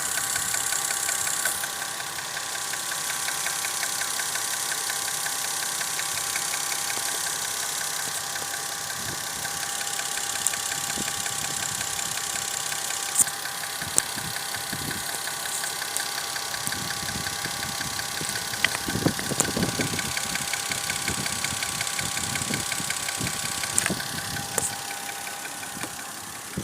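Toyota VVT-i engine idling steadily with a fast, even knock, which the owner puts down to the VVT-i coupler (cam phaser).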